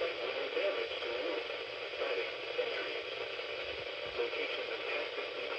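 Radio receiver static: a steady hiss with no clear signal.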